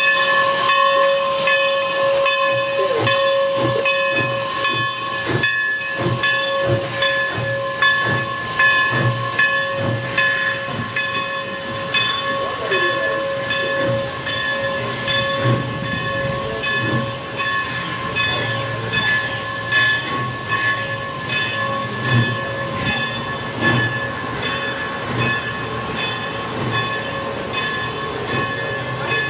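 Everett Railroad No. 11, a steam locomotive, and its train rolling slowly past: steady steam hiss with a held whistle-like tone, loudest in the first few seconds, over the repeated clack and thump of wheels over rail joints as a boxcar and a passenger coach go by.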